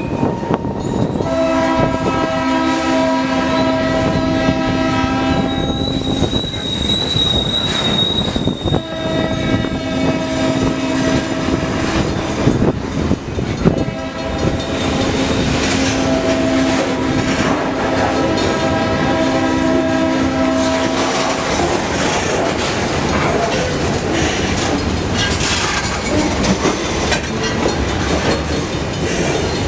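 Diesel locomotive's multi-chime air horn sounding three long blasts while a train approaches, then the train rolling past with the rumble and clickety-clack of wheels on the rails.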